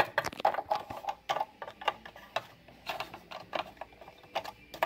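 Small plastic toy figures being handled on a plastic playset, tapping and clicking against its fence and pieces in irregular light clicks, several a second.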